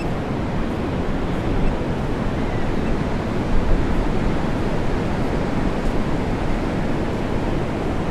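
Ocean surf, heard as a steady wash of noise with no distinct breaks.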